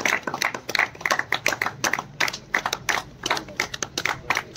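A group of people clapping, a quick, uneven scatter of sharp hand claps.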